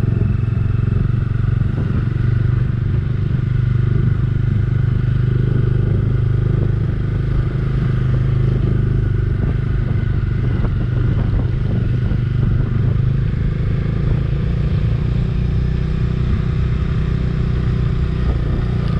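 Motorcycle engine running at a steady, even pace.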